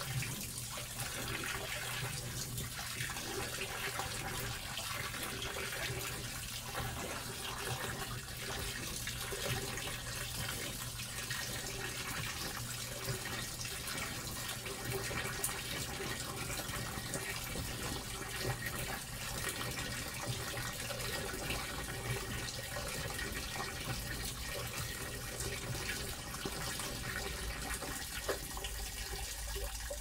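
Panasonic top-loading washer with water pouring steadily from the outlet at the top of the tub and splashing onto the wet clothes. A steady low hum runs underneath.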